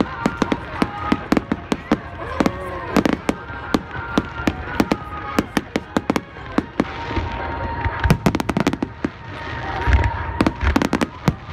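Fireworks display going off: a dense, irregular run of sharp cracks and pops, with a few deeper booms about three, eight and ten seconds in, and voices underneath.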